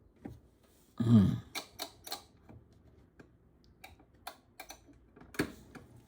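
Irregular clicks and taps of a washing machine's controls being set for a super wash cycle, with one louder sound about a second in.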